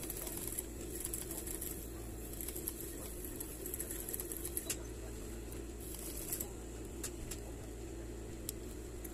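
Sewing machine running steadily, stitching satin, with a low constant motor hum and a fine even stitching noise.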